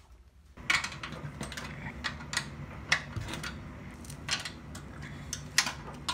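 Hand tools clicking and clinking on a small four-stroke kart engine as it is taken apart: irregular sharp metallic clicks, about two a second, over a low steady hum, starting about half a second in.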